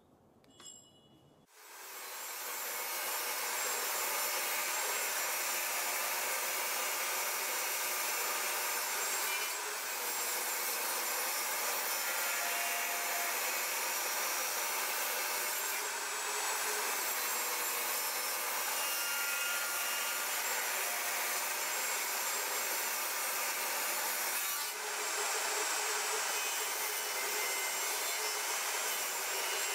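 Table saw running and ripping thin strips off a wooden board, a loud steady sawing noise that starts abruptly about a second and a half in.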